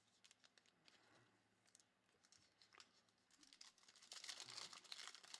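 Faint crinkling and tearing of a Flux trading-card pack's wrapper: a few light ticks at first, then a dense crackle from about four seconds in as it is ripped open.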